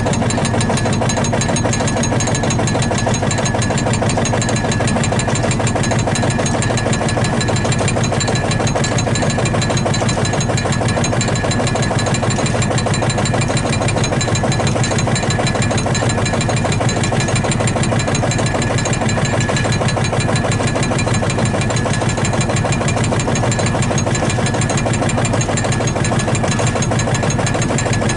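Field Marshall tractor's single-cylinder two-stroke diesel engine running steadily, with a fast, even knocking beat.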